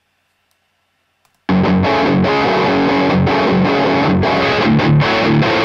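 Near silence, then about a second and a half in a heavily distorted electric guitar riff starts and plays on loudly. It is a recorded guitar track run through Cubase's stock Distortion plugin (boost at 5, tone at max) and a cabinet simulation, set to imitate a Peavey 5150 amp tone.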